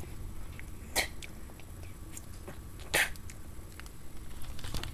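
A child making spitting noises with her mouth, short sharp hissing spits: two clear ones, about a second in and about three seconds in.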